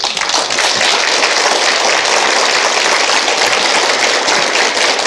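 Studio audience applauding steadily, the applause breaking out at once.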